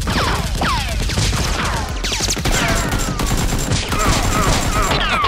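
Gunfire sound effects: a dense, continuous burst of shots mixed with repeated falling whistles of ricochets or passing bullets.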